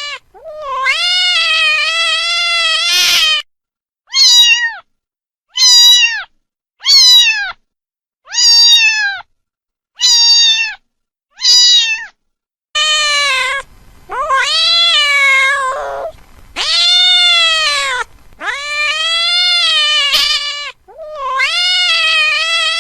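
A domestic cat meowing over and over. First comes one long, drawn-out meow, then six short, higher meows about a second apart, then four long meows back to back.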